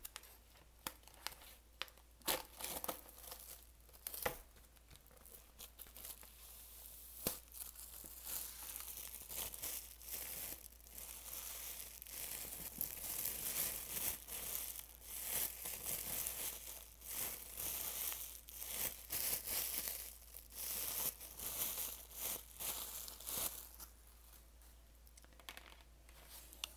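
Plastic shrink-wrap being torn off a vinyl record sleeve and crinkled in the hands: scattered sharp crackles at first, then a thick run of crinkling and tearing through the middle that thins out near the end.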